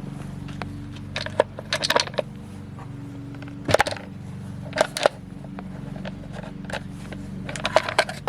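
Sharp metallic clinks and rattles of tools and parts being handled while taking apart a chainsaw, in several short clusters, over a steady low hum.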